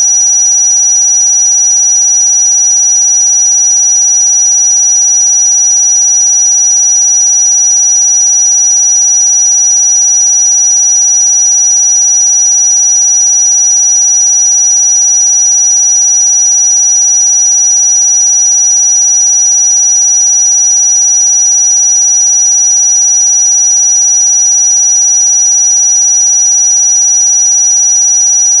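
Loud, unchanging electronic tone made of several pure pitches held together, the strongest two very high-pitched, with no pauses or changes. It is a synthesized noise track meant to be played against noisy neighbours.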